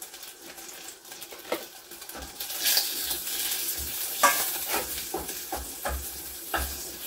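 Butter melting and sizzling in a pan, the hiss growing a couple of seconds in. A utensil stirs it, with a run of short knocks and scrapes against the pan through the second half.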